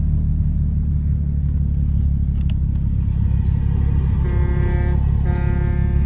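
S5 car driving, with a steady low engine and road rumble; the owner says it still makes some noise and suspects it might need a new flywheel. About four seconds in, two short steady horn-like tones sound, each under a second.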